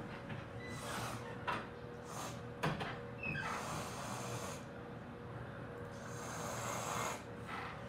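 A girl laughing in a string of breathy, uneven bursts of breath without words.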